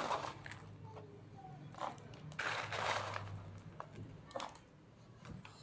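Ice cubes being taken by hand from a plastic bowl and dropped into a blender jar of milk: several short crunching rattles, the longest about halfway through.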